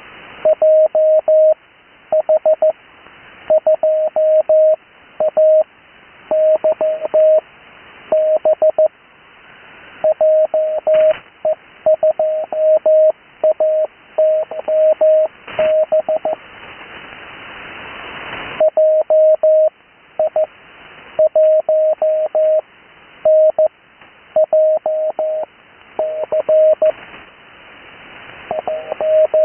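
Morse code (CW) received over a radio: a steady single-pitched tone keyed in dots and dashes, sent in groups, with band hiss between the characters. About halfway through the keying stops for two seconds while the static swells.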